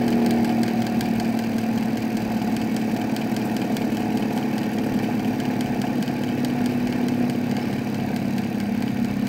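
Sun distributor tester's motor spinning a 1967 Oldsmobile 442 distributor: a steady mechanical hum as the tester is slowed toward 200 RPM.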